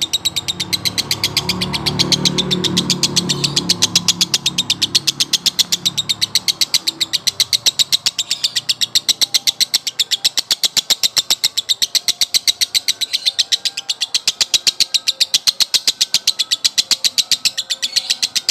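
Male lovebird in long 'konslet' chatter: a fast, unbroken run of sharp, high chattering notes at about five or six a second, sustained without a break. A low hum swells and fades in the background during the first few seconds.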